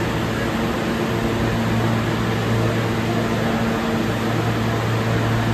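Steady running noise inside an R160A-1 subway car: a low, even hum over a constant rush of noise, with no sudden changes.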